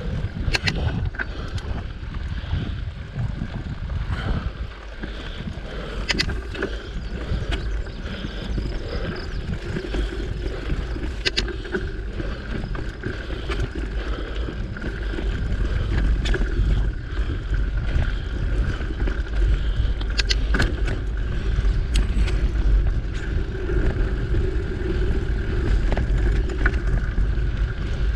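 Mountain bike riding a dirt singletrack: wind buffeting the camera's microphone with a steady low rumble, tyre and drivetrain noise underneath, and scattered sharp clicks and rattles from the bike. It grows somewhat louder about halfway through.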